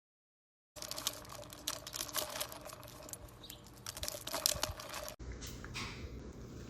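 Dachshund eating: a dense run of crisp clicks and crunches that starts about a second in. About five seconds in it cuts to a quieter stretch with only a few scattered clicks.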